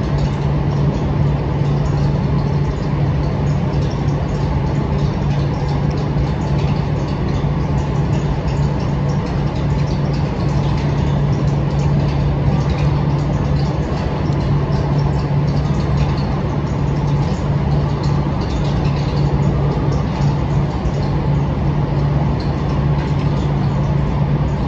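A steady low machine hum that does not change, with faint chewing and smacking from someone eating fried chicken.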